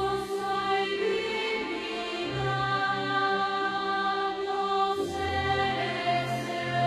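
Slow religious choral music, a Jehovah's Witnesses hymn: a choir sings over sustained chords that change every second or two.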